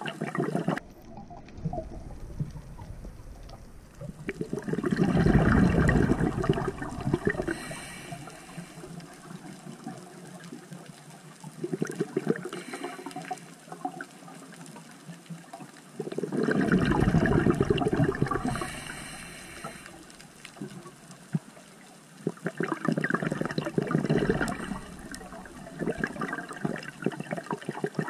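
Scuba diver breathing through a regulator underwater: loud bursts of exhaled bubbles about every six seconds, with a fainter hiss of inhalation between them.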